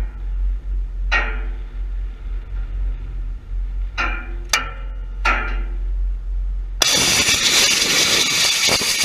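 Home-built nitro-fuelled rocket engine igniting on a static test stand about seven seconds in: a sudden loud roar that starts at full strength and keeps running. Before it, there is only a low rumble and a few short pitched sounds.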